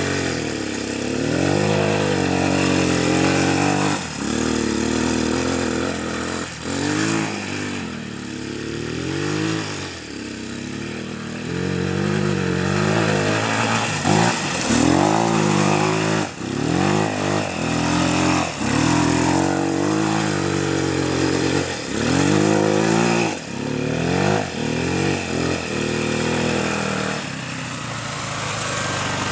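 Bashan 250 cc quad bike's engine revving up and down over and over as it is ridden, the pitch rising and falling in long sweeps at first, then in quick throttle blips and cuts about once a second in the second half.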